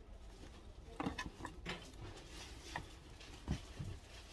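Hands handling fresh flowers: irregular rustling of stems and leaves, with scattered light clicks and taps as a small flower bundle is pressed onto a garland base lying on cardboard.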